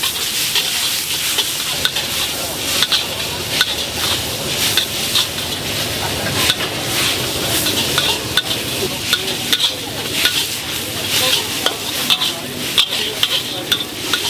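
Noodles sizzling in a charcoal-fired wok while a spatula is worked against the wok, giving many sharp, irregular clacks and scrapes over a steady hiss.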